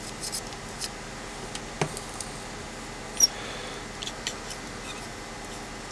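Small scattered clicks and taps of a soldering iron and solder being worked against a circuit board's component leads, with one short high squeak about three seconds in.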